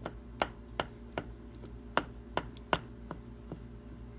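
Wooden spoon knocking against the bottom and sides of a stainless steel pot, about two or three knocks a second, as thick split pea soup is stirred and mashed, over a steady low hum.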